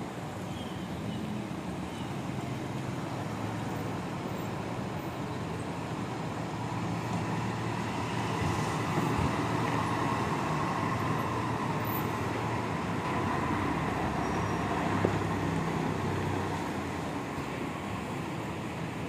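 Express coach's diesel engine running as the bus pulls in and turns slowly, a steady low drone that grows louder as it passes close, then eases off near the end.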